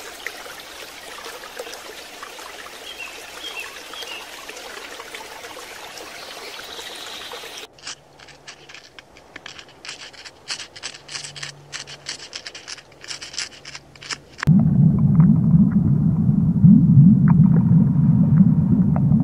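A steady hiss like running or bubbling water lasts about seven and a half seconds. It gives way to a run of irregular sharp clicks over a faint hum. About fourteen seconds in, a louder deep underwater rumble starts.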